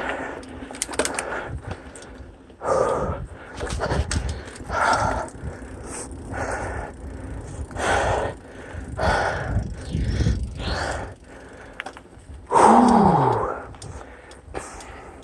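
A cyclist breathing hard and rhythmically while pedalling, with a heavy exhale about every second or so. About twelve and a half seconds in comes a louder exhale with a falling voiced groan. A low rumble runs underneath.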